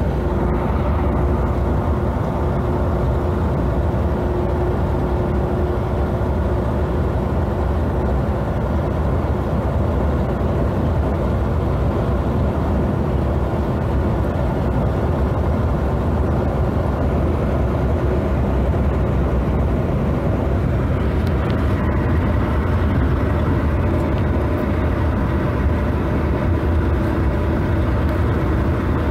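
Steady, mostly low-pitched engine and road noise heard from inside the cab of a vehicle cruising at highway speed.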